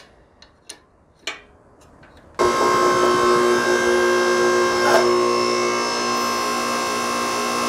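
A few faint clicks as a fitting on the hydraulic control valve is tightened. Then, about two and a half seconds in, the press's 3 hp electric hydraulic power pack is heard running under pressure: a loud, steady hum with several steady tones.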